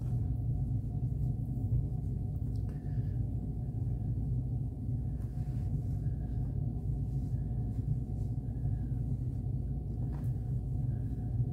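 Steady low rumble of a cruise-ship cabin's background hum, with faint soft rustling of a terry towel being rolled up on the bedspread.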